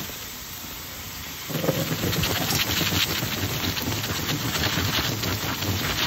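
Water dousing a hot copper ingot and its mould, hissing and boiling off into steam. The faint hiss jumps about a second and a half in to a loud, dense crackling sizzle full of sharp pops as the water hits the hot metal.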